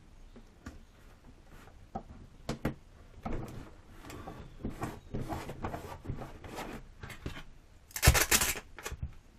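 Tape being handled at a workbench: scattered small clicks and rustles, then a louder rasping burst of about half a second near the end, as a strip is pulled off the roll to hold an RC plane's canopy down.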